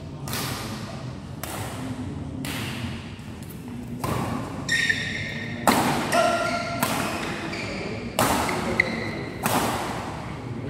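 Badminton rackets striking a shuttlecock in a fast doubles rally, about one hit every second, the loudest a little past halfway. Shoes squeak on the court floor now and then from about halfway through.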